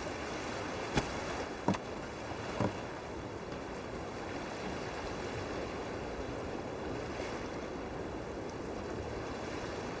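Steady wash of sea surf, with three brief soft knocks in the first few seconds.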